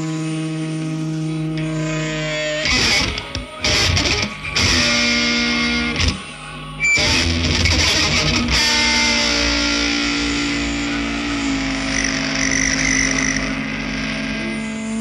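Noise rock band recording led by electric guitar with effects: held, ringing notes, broken about three seconds in by a run of short, choppy chords with brief gaps, then held notes again.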